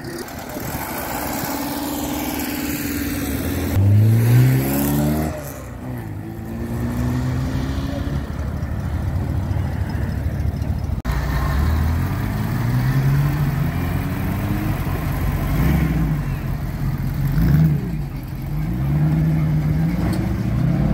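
Classic car engines as the cars pull away one after another past the crowd, each revving up in a rising note; the loudest rev comes about four seconds in.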